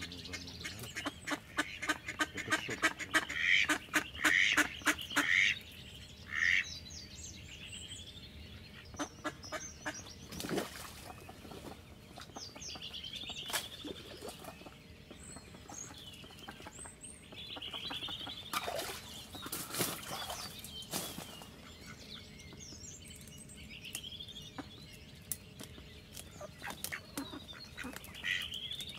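Live hen decoy duck quacking, with a fast run of loud quacks in the first few seconds and then scattered calls. Small birds chirp in the background.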